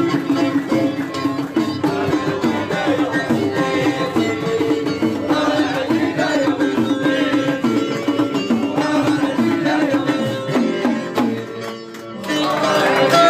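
Music with a melody over a steady percussion rhythm. It drops away briefly near the end and comes back louder.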